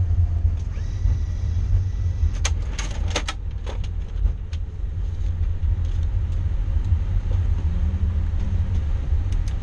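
Low, steady rumble inside the cockpit of an Airbus A340-600 as it rolls out at low speed after landing. A quick run of sharp clicks comes about two and a half to four seconds in.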